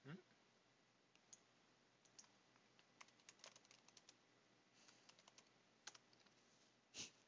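Faint computer keyboard typing: scattered single keystroke clicks over several seconds, with one louder click near the end.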